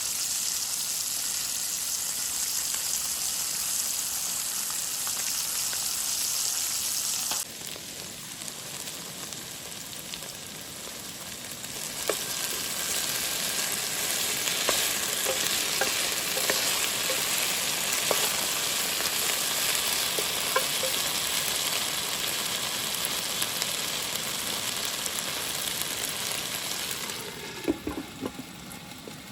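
Flour-battered crappie frying in hot oil with a steady sizzle. The sizzle drops off about seven seconds in, comes back louder about twelve seconds in with a few light clicks, and fades near the end.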